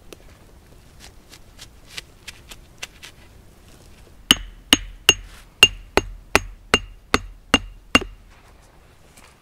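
A stake being hammered into the ground with a short-handled striking tool: a few light taps, then about ten sharp strikes, roughly two to three a second, each with a short ring.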